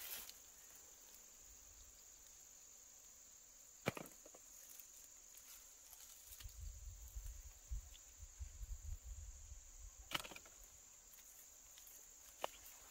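Faint, steady high-pitched insect drone, with three sharp snaps and light rustling from hands gathering fallen chestnuts among dry leaves and twigs.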